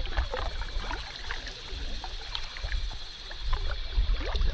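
Canoe paddling on a river: paddle strokes, water splashing and dripping in short clicks, with wind rumbling on the microphone.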